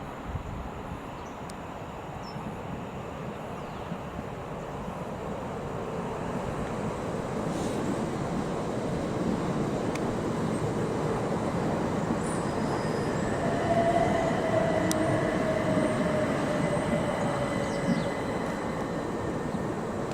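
Train running along the track past the station. Its rumble builds over the first half and then holds, with a faint whine that falls slightly in pitch from about two-thirds of the way in.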